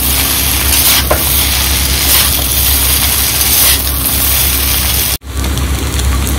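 Chow mein with vegetables sizzling in a pan over a high flame, with a steady low hum beneath. The sound drops out for an instant about five seconds in.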